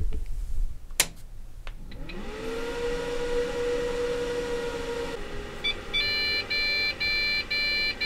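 Desktop computer switched on: a click of the power switch, then the fans spin up in a rising whine that levels into a steady hum, the CPU fan revving high at boot and dropping in pitch about five seconds in. Near the end, a run of short electronic beeps, about two a second, plays over the fan noise.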